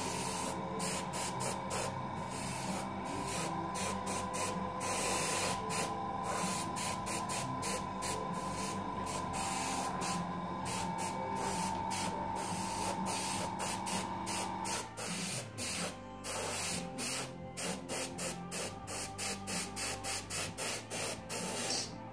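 Airbrush spraying paint: a hiss of air and paint that starts and stops over and over as the trigger is worked. The spurts grow short and quick in the second half.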